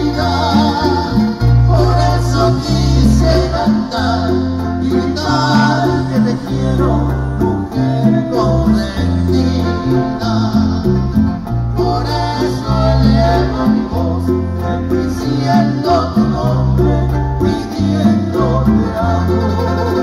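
Live trío romántico playing a bolero: guitars strummed and picked over a steady bass line, with singing.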